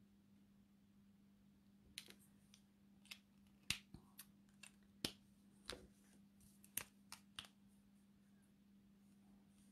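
Copic alcohol markers clicking as they are handled and swapped: about a dozen sharp plastic clicks of caps and barrels over some five seconds, starting about two seconds in, over a faint steady hum.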